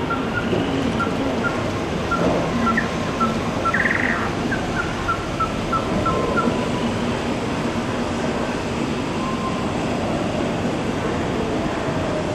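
Steady din of an H0 model railway layout with model trains running. Over it, for the first half, comes a rapid series of short high beeps, about three a second, that stops partway through.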